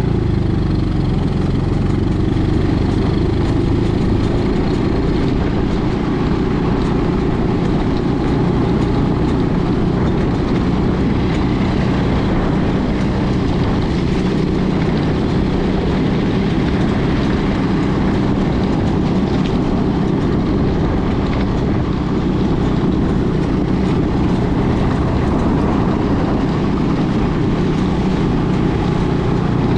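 50cc quad buggy engine running steadily, with a constant low pitched drone and a noisy haze over it.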